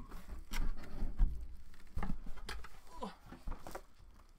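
A fabric laptop carrying case is being handled and moved. It rustles with several dull bumps and knocks, the loudest about a second in.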